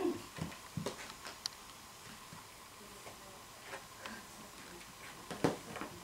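Light, scattered taps and clicks of kittens' paws and claws scampering on tatami mats, the sharpest tap about five and a half seconds in.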